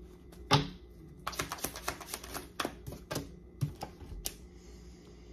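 Tarot cards being handled, likely shuffled or flicked: a sharp snap about half a second in, then a quick run of papery clicks for about two seconds and a few scattered snaps.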